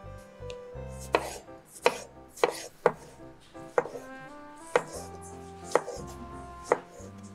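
Chef's knife dicing tomatoes on a wooden cutting board: sharp knocks of the blade hitting the board, about eight of them at roughly one a second.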